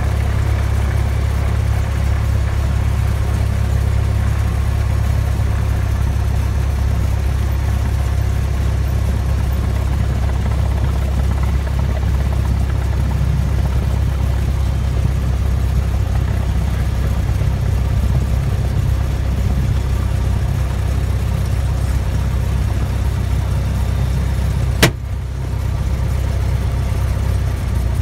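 Cessna 172's piston engine and propeller droning steadily inside the cockpit, heavy in the low end, as the plane moves on the ground. A single sharp click comes near the end.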